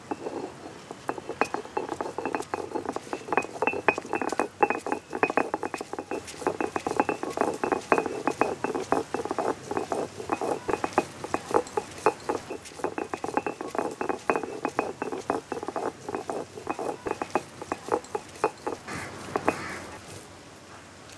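Cylindrical stone roller worked back and forth on a flat grinding stone (ammikkallu), crushing dried red chillies and fried fish into a chammanthi: rapid, uneven clacks and scrapes of stone on stone, stopping near the end.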